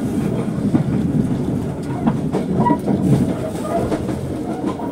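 Kutojaya Selatan passenger train running, a steady rumble with a string of irregular knocks as the wheels clatter along the track.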